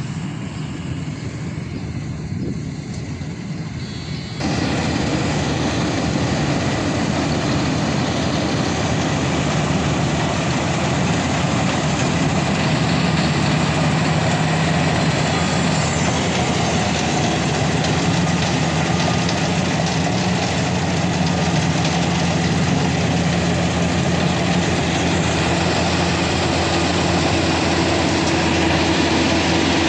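Maxxi Bhimo 102 combine harvester running with a steady engine drone and a broad mechanical wash of noise. About four seconds in it suddenly gets louder and fuller, then holds steady.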